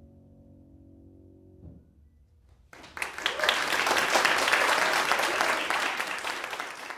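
Grand piano's last chord held and dying away, stopping about a second and a half in; after a short hush an audience breaks into applause.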